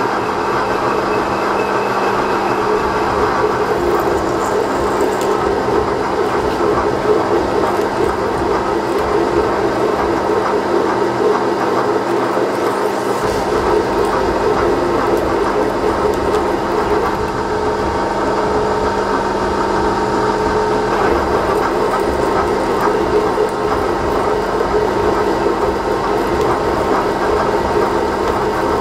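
Milling machine spindle running while an end mill plunges into a 4140 steel back plate, cutting counterbores for bolt heads to a depth set on the quill. A steady hum and whine, with cutting noise throughout.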